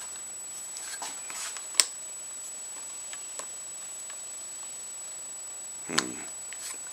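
Light clicks and taps of small motorcycle lever parts being handled and fitted on the handlebar, the sharpest click about two seconds in, with a brief louder sound near the end.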